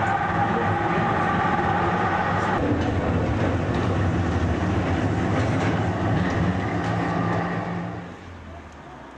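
Pöstlingbergbahn's old electric tramcar running along its track, heard from inside the car: a steady rumble of motor and wheels with light clicks from the rails. There is a steady hum over the rumble for the first couple of seconds, the sound changes about two and a half seconds in, and it fades near the end.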